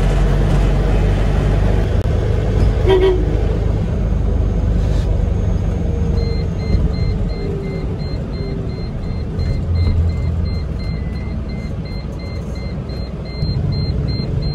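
Cab noise of a Force Traveller 3350 ambulance on the move, its 2.6-litre diesel engine and road noise steady, with a short horn toot about three seconds in. From about six seconds in, an electronic beep repeats two or three times a second.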